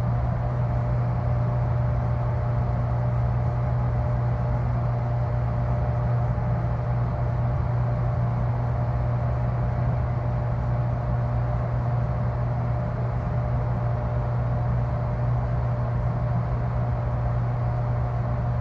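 Freezer unit's deep, steady mechanical drone: a strong low hum with a thin steady higher tone above it, unchanging throughout.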